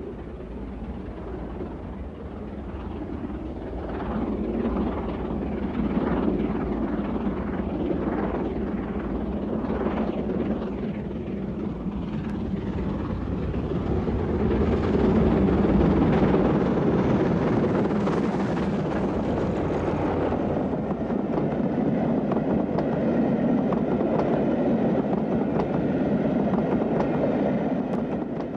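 Steam locomotive working hard with a train as it approaches and passes, its exhaust beats coming in a regular chuff. The sound is loudest about halfway through, then gives way to the steady rumble and clatter of the coaches running by.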